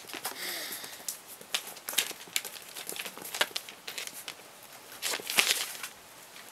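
Chihuahua puppies and their mother scuffling at play on a tiled floor: claws clicking and scratching, and paper rustling underfoot, loudest about five seconds in. A brief faint whine comes about half a second in.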